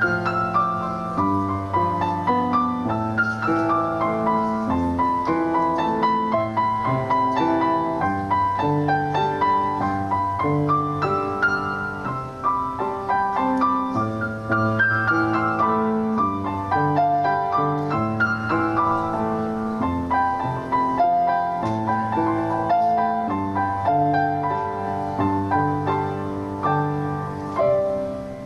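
Piano playing a flowing piece of many held notes over a repeating bass line, dropping off near the end.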